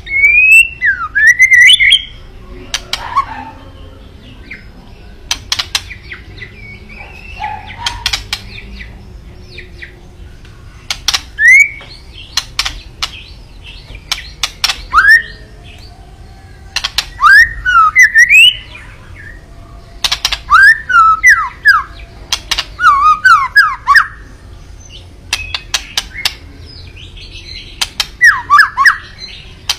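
White-rumped shama (murai batu) singing in short, loud bursts of sweeping whistled notes, mixed with sharp rattling clicks (kretekan), the aggressive call used to provoke rival shamas. A burst comes every two to three seconds, with brief pauses between.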